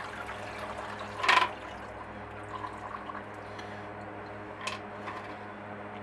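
Rust-wash solution dripping and trickling from an upturned glass jar into a plastic tub, with one louder splash a little over a second in and a smaller one near the end. A low steady hum runs underneath.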